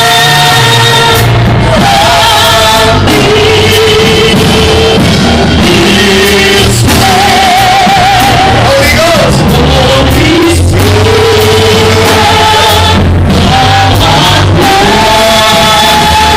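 Live church worship music: a voice singing with a band, held notes over a steady bass and drumbeat.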